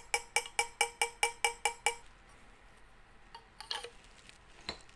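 Small dent hammer tapping the high spots of a brass trombone tuning slide, with a steel dent ball inside, to smooth out a dent. The light metallic taps ring and come evenly, about six a second, and stop about two seconds in. A few faint clinks follow.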